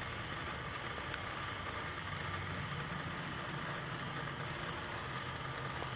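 Steady low hum and hiss of night-time outdoor background, with no thunder heard although lightning is flashing; a few faint short high chirps come through.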